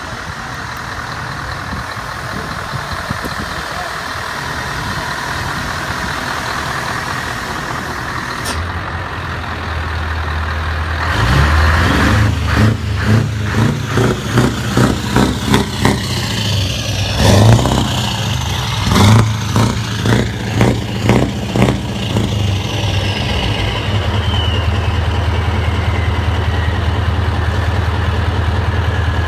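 Scania R580's V8 diesel heard through its side-exit exhaust pipes: after a steady lower sound it grows louder about ten seconds in, is revved in a string of short blips for about twelve seconds, then settles to a steady idle.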